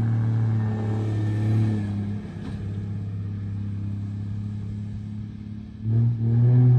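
Semi-truck diesel engine running through a modified exhaust with a steady low drone, swelling louder about six seconds in.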